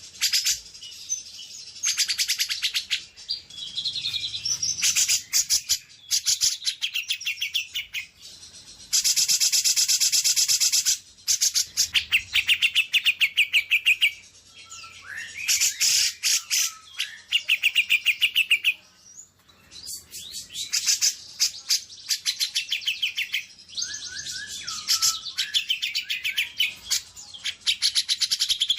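Songbird song: fast trills and chattering phrases of rapid high notes in loud bursts, broken by short pauses, with a few sliding whistles mixed in.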